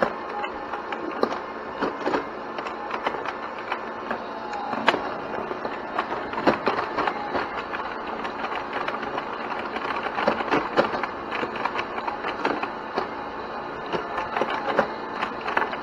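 Tabletop electronic pinball toy in play: a steady, busy run of clicks and knocks as the plastic flippers snap and the ball strikes the bumpers and the playfield.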